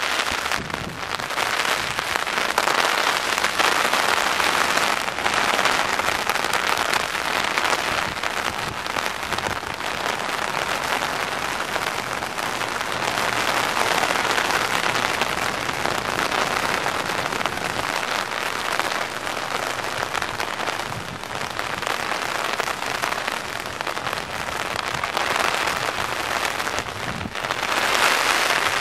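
Heavy rain falling steadily and hitting the umbrella held over the microphone, a dense crackling hiss that grows louder near the end.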